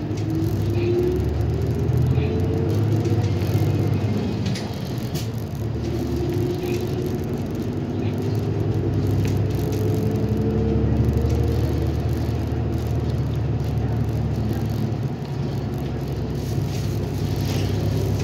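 City bus running along the road, heard inside the cabin: a steady low engine and road rumble with a whine that rises in pitch as the bus speeds up, near the start and again through the middle, and a few light rattles.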